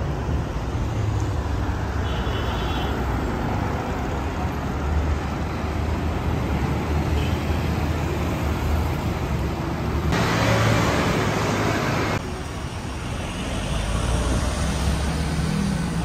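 Road traffic on a city street: a steady low rumble of passing cars. About ten seconds in, a louder, brighter stretch of traffic noise lasts about two seconds and then cuts off.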